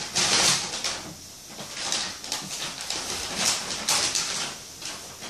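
Audience laughing in a few irregular bursts.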